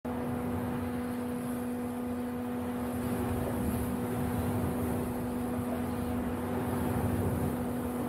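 Electric motor and geartrain of a radio-controlled rock crawler whining at a steady pitch as it crawls slowly over rocks, over a low rumble.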